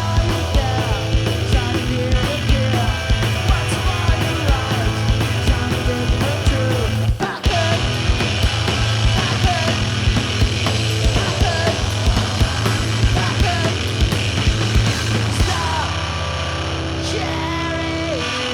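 Live rock band playing: drums keep a fast, even beat under guitar notes that bend and slide. About seven seconds in the sound dips for a moment, and near the end the drum beat stops while a chord is held.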